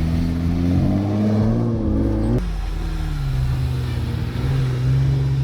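Off-road 4x4 engine running and revving in soft sand, its pitch rising and wavering. About two and a half seconds in it changes suddenly to a steadier, lower engine note.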